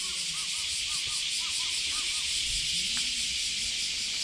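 Cicadas shrilling in a summer chorus: a steady high hiss that pulses a few times a second. Short repeated chirping calls sound beneath it.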